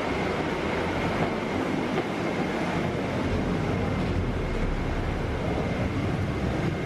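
Cabin noise inside a Scania K320UA articulated bus under way: a steady low engine and road rumble with the air conditioning running, and a faint steady high whine.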